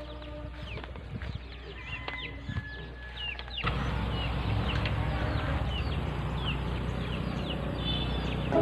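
Birds chirping over and over in short, falling chirps. About a third of the way in, the background switches abruptly to a louder rushing noise, and the chirping carries on over it.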